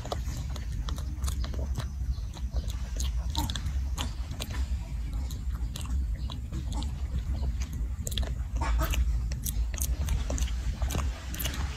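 Macaque mouth sounds: irregular wet clicks and smacks, over a steady low rumble.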